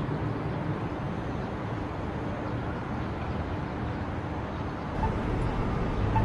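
City street background: steady traffic noise with a low rumble, which grows louder about five seconds in.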